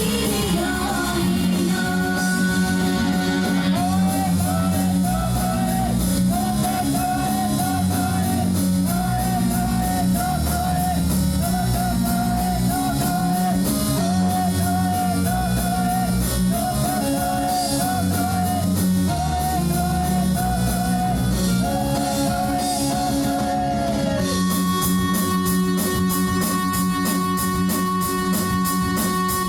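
Idol pop-rock song played loud over a concert hall PA, a sung melody over electric guitar and drums. About 24 seconds in the song settles onto one long held closing chord.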